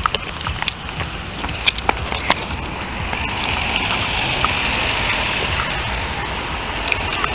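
Handling noise of a handheld camcorder: scattered clicks and rubbing as it brushes against a backpack, then about three seconds in a steadier hiss of outdoor noise as a white Volkswagen T3 van goes by on the road.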